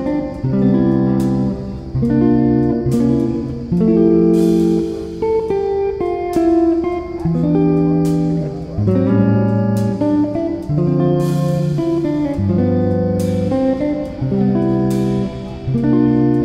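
Background music on guitar: plucked notes in a steady, unhurried melody.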